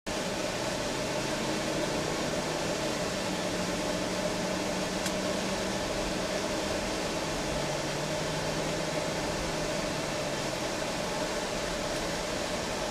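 Steady cabin noise of a vehicle driving on the road: engine and tyre noise heard from inside, with a low engine tone that drops in pitch about halfway through.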